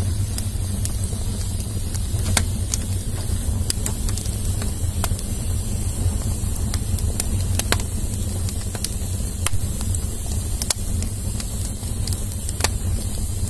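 Wood fire of split kindling burning, crackling with many sharp, irregular pops over a steady low rumble.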